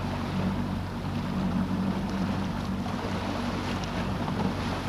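70 hp outboard motor running steadily as the boat cruises, a constant low drone over the steady rush of wind and water from the moving hull.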